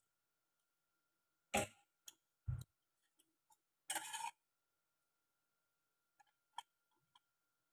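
Quiet eating sounds: a few sharp taps and clicks of wooden chopsticks against a stainless steel pot, with a short scraping rustle about four seconds in.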